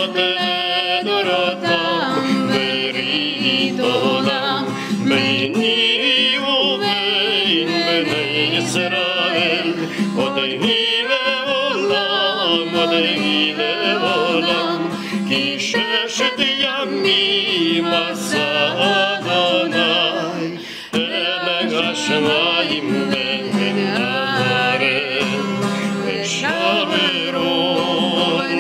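A young woman and a man singing a Hebrew prayer melody together, accompanied by a strummed twelve-string acoustic guitar.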